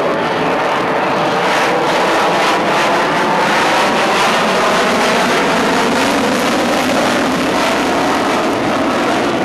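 Lockheed Martin F-22 Raptor's twin turbofan engines: loud, steady jet noise as the fighter flies a banking pass overhead.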